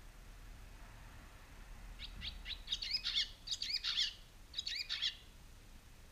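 Barn swallow at its nest giving a rapid series of sharp chirps for about two seconds, then a short second burst: alarm calls at a person close to the nest.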